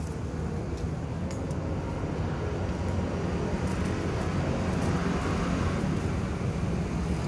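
Steady low rumble of road traffic that swells and fades again in the middle, with a few faint clicks.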